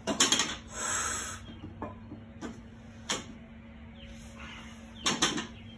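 Loaded barbell set down on a rubber floor mat, a short clatter of weight plates. It is lifted again with a few light clicks from the plates, then set down with another clatter near the end.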